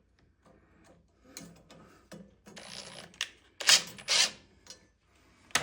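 Small metal clicks and scrapes from fitting a mounting bracket and screw onto a furnace blower motor, with two louder scrapes about three and a half and four seconds in and a sharp click near the end.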